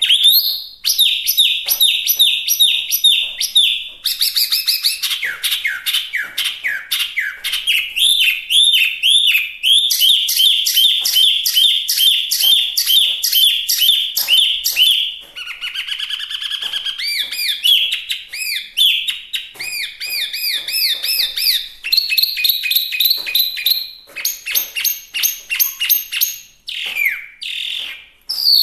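Chinese hwamei singing loudly and continuously: fast runs of repeated whistled notes, several a second, switching to a new phrase type every few seconds.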